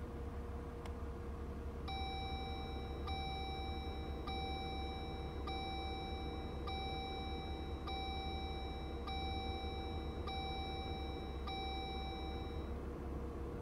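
A car's dashboard warning chime dinging nine times, about once every 1.2 seconds, over the low steady hum of the idling engine.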